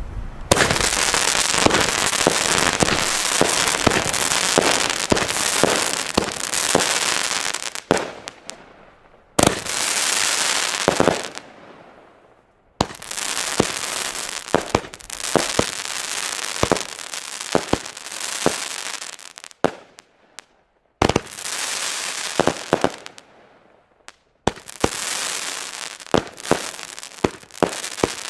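Weco Daredevil consumer firework battery firing: a dense rush of hissing shots with many sharp bangs in quick succession, broken by a few short pauses.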